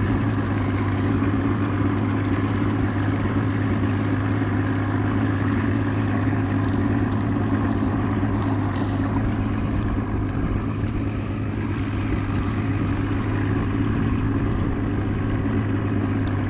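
Small fishing boat's motor running with a steady, even hum.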